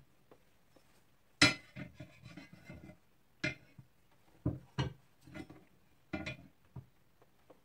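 Hard assembly parts knocking and clinking against each other as they are picked up and set down: about half a dozen separate knocks, the loudest about a second and a half in, some followed by a short rattle.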